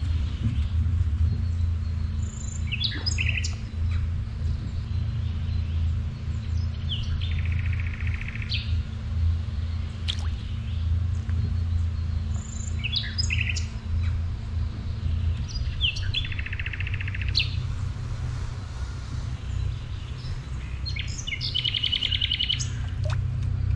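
A songbird singing the same short phrase about every four to five seconds: a few sharp high notes, then a buzzy trill. A steady low rumble runs beneath the song.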